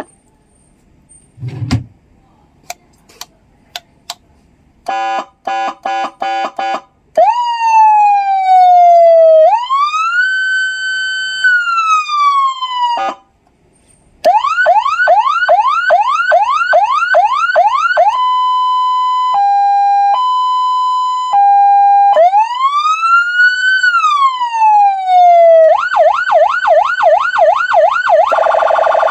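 SENKEN CJB100AD electronic police siren sounding through its siren speaker as it steps through its tones. After a few clicks comes a quickly pulsed tone, then slow rising-and-falling wails, a fast yelp of about three sweeps a second, and a two-note hi-lo. Another wail and yelp follow, and a harsh buzzing horn tone comes near the end.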